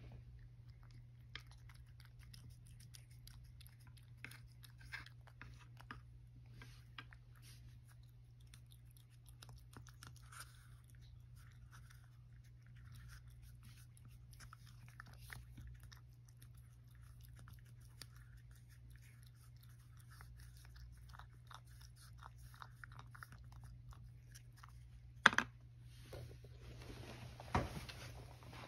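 Domestic cat eating wet food, licking and chewing with many small wet clicks and smacks, over a steady low hum. About 25 seconds in comes a single sharp knock, the loudest sound, followed by a few seconds of rustling handling noise and another knock.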